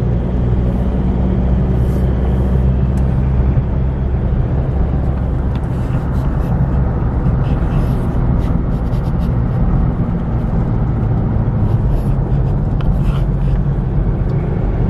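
Steady engine hum and road noise from inside a moving vehicle, with faint clicks and rattles over it.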